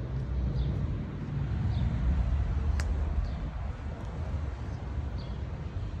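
A small songbird gives short, falling chirps about once a second over a steady low rumble, with one sharp click about halfway through.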